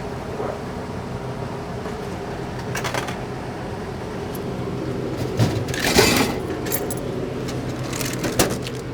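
Buying from a vending machine: several sharp clicks and clunks of coins and the machine's mechanism, the loudest about six seconds in, over a steady low hum.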